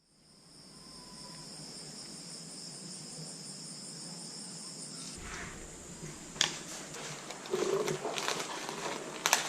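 Insects trilling steadily in a high pitch, cutting off suddenly about five seconds in; after that come a few sharp clicks and rustling.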